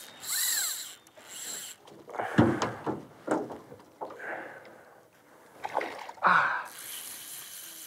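A hooked peacock bass thrashing and splashing at the surface beside an aluminium boat, with a sharp thump about two and a half seconds in and a bigger splash near the end.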